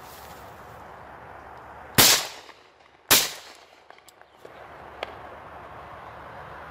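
Two shotgun shots about a second apart, both barrels of a double-barrelled shotgun fired in quick succession, each loud with a brief echoing tail. A faint click follows near the end.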